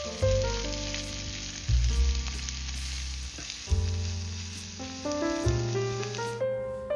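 Food sizzling in a hot frying pan, a steady hiss that cuts off suddenly near the end. Piano background music plays over it.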